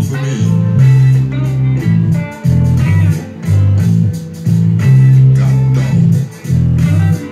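Electric bass guitar played fingerstyle: a blues line of low notes, each held about a second with short breaks between them. Electric guitar plays along above it.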